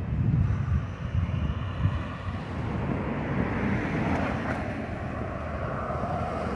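Street traffic: car and pickup truck engines and tyres passing on the road. A louder low rumble in the first second or so settles into a steady hum, with a faint whine rising and falling about two-thirds of the way through.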